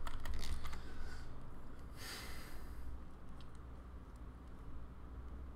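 Quiet room tone with a steady low hum; about two seconds in, one breath or sigh into a close microphone, lasting about a second.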